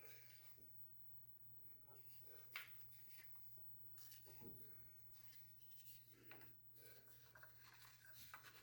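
Near silence: faint room tone with a low steady hum and a few faint small clicks and rustles.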